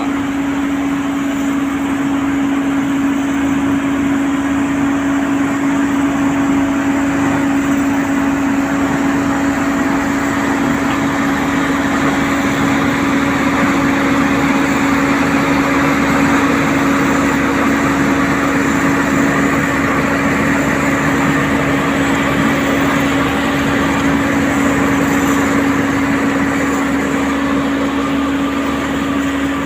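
Diesel engine of asphalt-paving machinery running steadily, with a constant droning hum.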